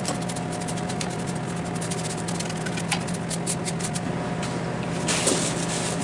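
Steady hum of a running machine, with irregular light scratches and clicks as a hand brush sweeps snow off the baler's metal frame; a louder rustle comes near the end.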